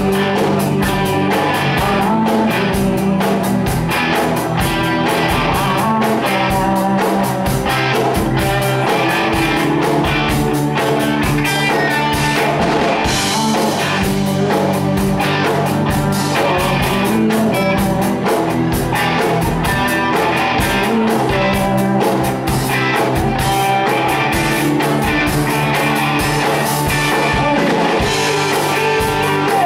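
Live rock band playing loud and steady: electric guitars over a drum kit beat.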